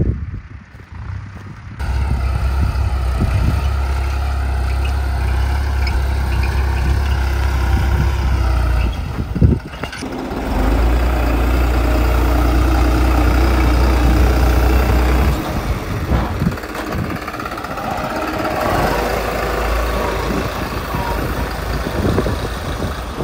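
New Holland 3630 tractor's diesel engine working steadily under load as it pulls a plough through dry soil. The engine comes in loud about two seconds in, with one sharp knock about halfway through.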